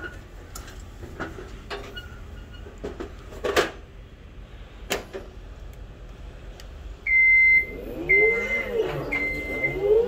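A steady low hum, typical of a walk-in cooler's evaporator fans running, with a few sharp knocks. About seven seconds in, a high electronic beep starts, repeating roughly once a second, and becomes the loudest sound.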